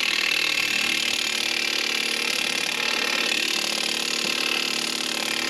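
Cordless Milwaukee impact gun hammering steadily on the threaded rod of a wheel-bearing press tool, drawing the front wheel bearing out of the steering knuckle. The bearing is resisting and has not popped free.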